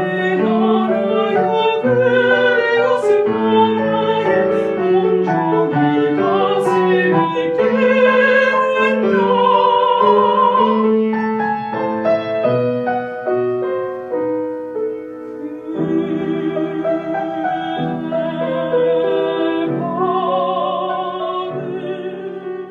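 Background music: a soprano singing a slow classical song with vibrato over piano accompaniment, fading out at the end.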